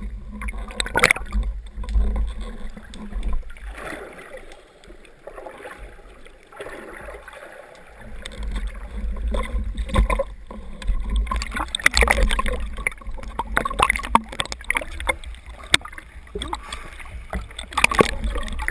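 Water sloshing and gurgling around a camera on a speargun in rough, shallow surf along rocks, with a low rumble of surge and scattered clicks. It goes quieter for a few seconds about a quarter of the way in, then churns louder again as the camera comes up at the surface near the end.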